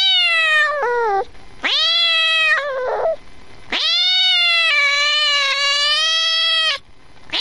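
A domestic cat meowing three times: two short meows, each falling in pitch at the end, then one long, drawn-out meow of about three seconds.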